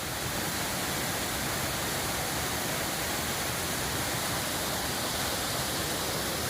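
Close, steady rushing of a waterfall, a little louder from the start onward.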